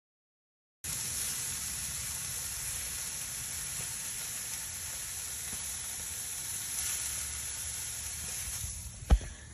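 Charcoal briquettes burning in a grill, a steady hissing crackle starting about a second in, with a single thump near the end.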